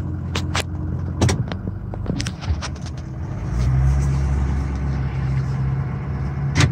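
Pickup truck engine running, heard from inside the cab, with a few sharp clicks near the start and another near the end. The engine gets louder about halfway through as the truck pulls away.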